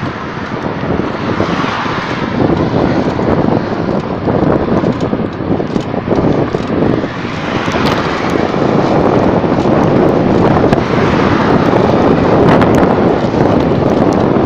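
Loud, steady rush of wind buffeting a phone microphone on the move, growing somewhat louder after the first few seconds.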